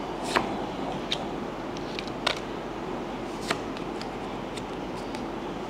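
Pokémon trading cards being handled and flipped through by hand: a handful of short, soft card clicks and slides spread over a few seconds, above a steady background hiss.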